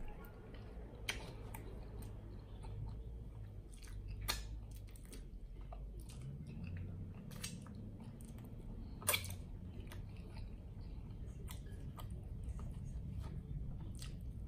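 Close-miked chewing of a mouthful of cheeseburger: soft, wet mastication with scattered mouth clicks and smacks, three of them sharper than the rest.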